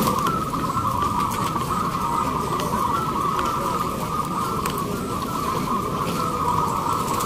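Many caged zebra doves cooing at once, their overlapping coos merging into one continuous chorus, over a steady low background noise.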